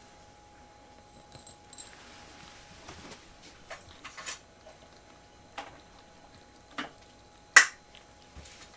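A kitten moving about: a few scattered light taps and clicks, the loudest a sharp click near the end.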